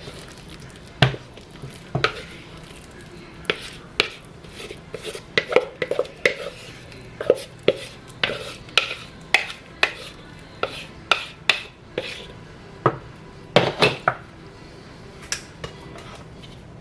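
Metal utensils knocking, clinking and scraping against pots and dishes in irregular strokes, several a second at times, over a low steady hum.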